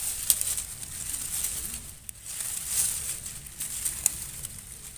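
Scattered small clicks and rustling of hands working through dry leaf litter while picking and trimming mushrooms, over a steady high hiss and a low wind rumble.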